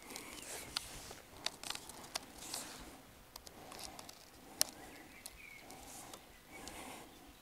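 Hands pulling and tying a cord around a tree trunk: rustling handling noise with scattered sharp ticks, one louder tick about halfway through, and a couple of short high squeaks.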